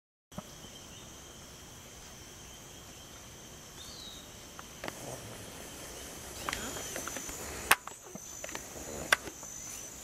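Insects trilling steadily in the background. Two sharp clicks come in the second half.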